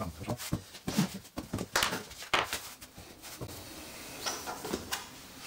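Bread dough being handled on a floured wooden workbench: a string of short taps and thuds as pieces are pressed, pre-shaped and set down, the loudest around two seconds in.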